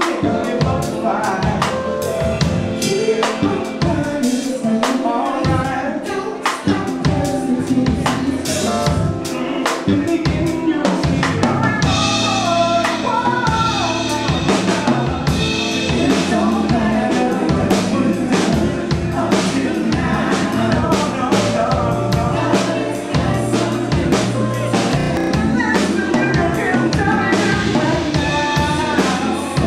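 Live soul band playing: drum kit, bass and electric guitar under a male lead singer. The bass and fuller drumming come in about seven seconds in, with a burst of cymbals a few seconds later.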